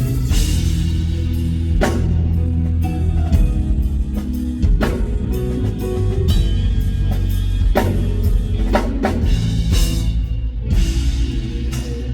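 A live band plays an instrumental passage between sung lines, with drum kit and guitar over a heavy bass. Crashing drum hits fall every few seconds.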